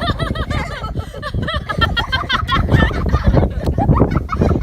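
Children's high-pitched squeals and giggling, many quick rising-and-falling cries overlapping, over a steady low rumble.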